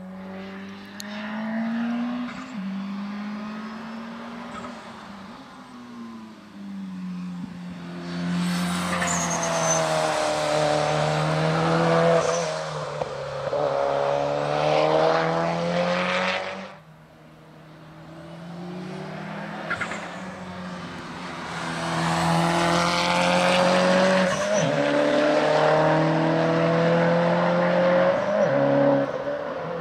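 Mitsubishi Lancer Evolution's turbocharged four-cylinder engine revving hard through a slalom, its pitch rising and falling with throttle and gear changes, with a hiss of tyres and spray on the wet track as it comes close. The sound cuts off abruptly just past halfway and then builds again as the car approaches.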